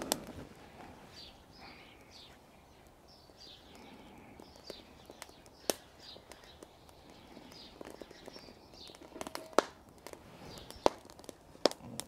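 Small stick fire crackling, with a few sharp pops, the loudest near the end, while birds chirp over and over in the background.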